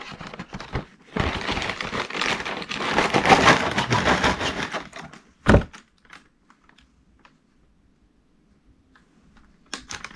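A cardboard cereal box being torn open and its plastic inner bag pulled out and handled, crinkling and rustling, with one sharp knock about five and a half seconds in.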